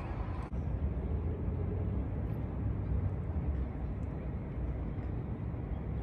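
Outdoor city ambience: a steady low rumble of traffic.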